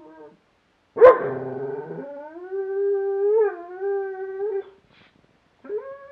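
A sighthound howling: a long howl starts with a loud onset about a second in and holds on one slightly wavering pitch for nearly four seconds, and after a short pause a higher-pitched howl begins near the end.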